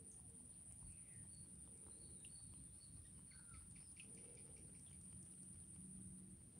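Near silence: faint outdoor background with scattered faint bird chirps over a steady high-pitched whine.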